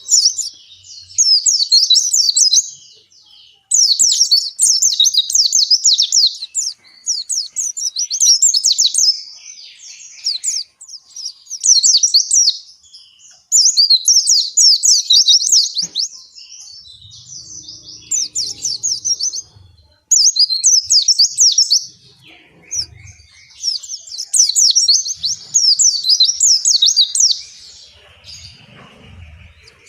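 Pleci (white-eye, Zosterops) singing its long, rapid, high-pitched warbling song in phrases of a few seconds each, with short pauses between them.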